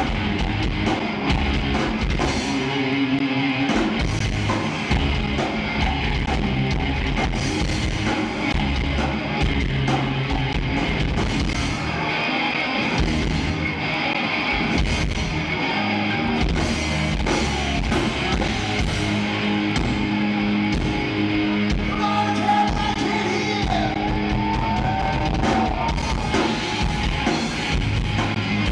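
Live rock band playing loud: electric guitars, bass and drum kit. A lead line bends up and down in pitch in the second half.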